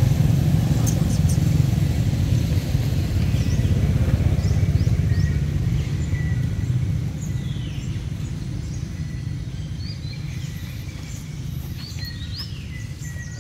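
Birds chirping with short, quick calls and a few brief whistled notes, over a low rumble that fades away after about six seconds.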